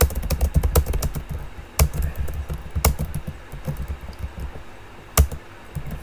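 Typing on a computer keyboard at a steady, unhurried pace, several keystrokes a second, with a few keys clacking louder than the rest.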